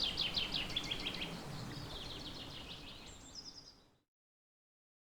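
Birds singing outdoors: rapid trilled chirps over a faint background hiss, fading out about four seconds in.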